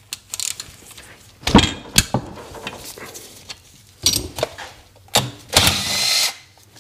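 Metal clicks, knocks and scrapes of a hand tool working on the bare crankcase of a Sea-Doo 951 DI two-stroke engine, as a part is worked off the case. A louder knock comes about one and a half seconds in, and a short rasping burst near the end.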